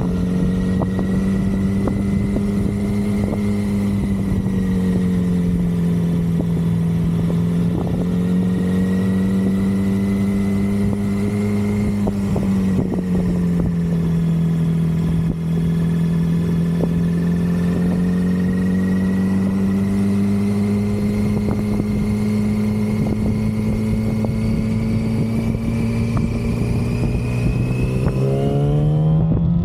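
2006 Yamaha R6's 600 cc inline-four engine, stock exhaust, running at a steady mid engine speed for a long stretch. Its pitch drifts gently up and down and climbs as it revs up near the end.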